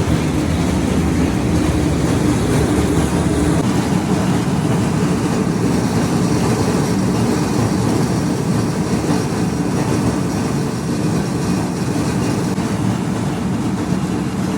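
Corn flakes production line machinery running steadily: a loud, even mechanical rumble.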